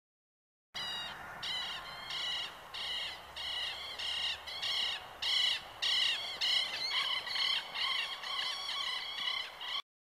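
A chorus of short, harsh, arched calls from several animals, overlapping and repeating about twice a second. It starts abruptly just under a second in and cuts off suddenly near the end.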